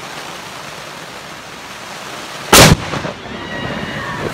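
Steady rain hiss, then about two and a half seconds in a very close lightning strike: one sharp thunder crack, very short and so loud it overloads the recording.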